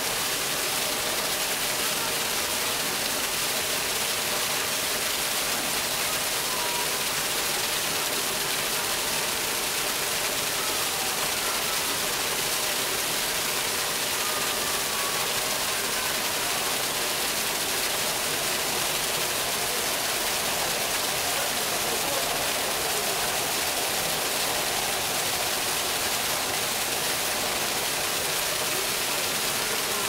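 A thin waterfall pouring into a pool, splashing steadily.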